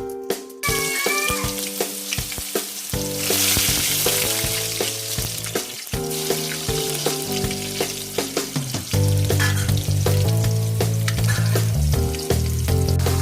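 Beef curry frying and sizzling in oil in a pan while it is stirred, with frequent short clicks. Background music plays throughout, its bass line coming in more strongly about nine seconds in.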